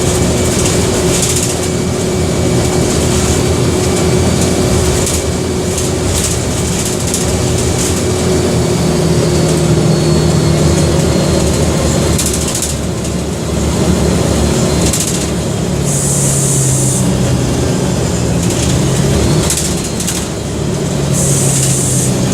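Mercedes-Benz OM 457 LA six-cylinder in-line turbo-intercooled diesel of an articulated city bus running under way, its engine note shifting a few times as the bus changes speed. Two short hisses are heard, about two-thirds of the way in and near the end.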